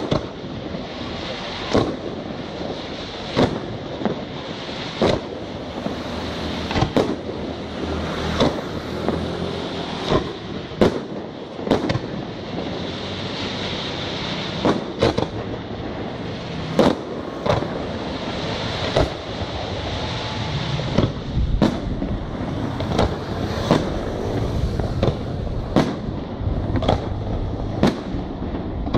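Aerial firework shells bursting in quick succession, sharp bangs every second or two over a continuous hiss from the burning stars.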